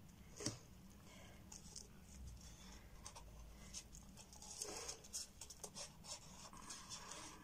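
Faint scratching and rustling as gloved hands work a stirring stick and a plastic mixing cup of resin over a silicone mould, with one sharp click about half a second in and small scrapes and taps after it.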